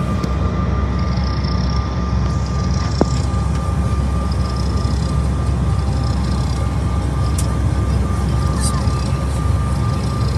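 Steady engine noise inside the cabin of a CRJ-900 jet on the ground: a low rumble with a thin steady whine from its rear-mounted turbofan engines. A short click about three seconds in.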